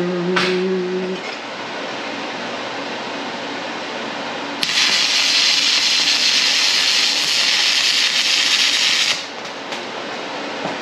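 Stick (arc) welding: the electrode's arc crackles and hisses loudly and steadily for about four and a half seconds, starting abruptly about halfway in and cutting off suddenly when the arc is broken.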